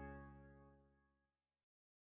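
Background music fading out on a final held chord that dies away, then silence for the last part.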